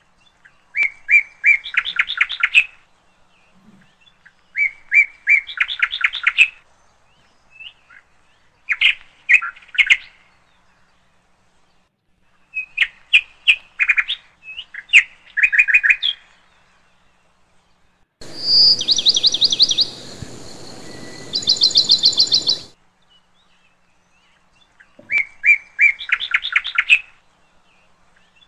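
Songbird singing: short phrases of a few clear notes running into a fast trill, repeated about every four seconds. About two-thirds of the way in, for about four seconds, a different run of rapid, higher chirps sounds over a steady hiss that starts and stops abruptly.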